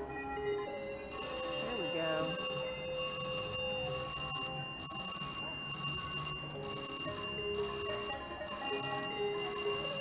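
Slot machine's win bell ringing in repeated bursts, about once a second, starting about a second in, as a 20-credit win is paid out.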